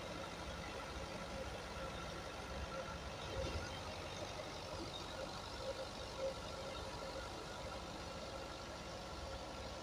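Tractor-powered threshing machine running steadily at full power, with the tractor's diesel engine under load and the thresher's steady whine as sesame stalks are fed in.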